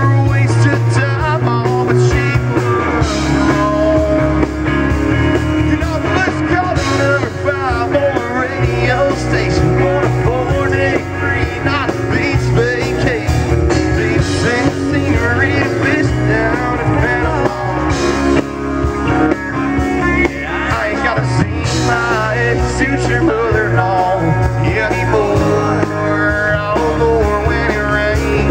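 Live country-rock band playing: guitars over bass and drums, loud and unbroken.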